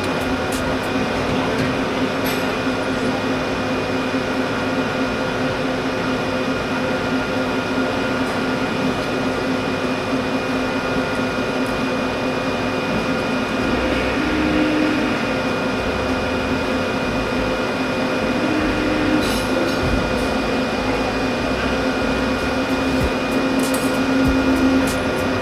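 An electric motor running steadily with a constant hum and whine, a slightly higher note briefly joining it a few times.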